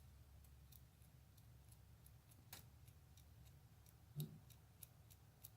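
Faint light metallic clicks, two or three a second and unevenly spaced, over a low hum: loose tappet buckets in a Toyota 2C diesel's cylinder head knocking in their bores, the play behind the engine's periodic knock.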